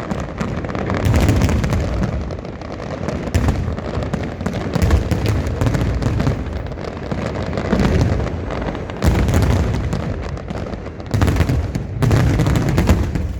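Fireworks display: aerial shells bursting one after another in quick succession, with booms and crackle over a continuous low rumble.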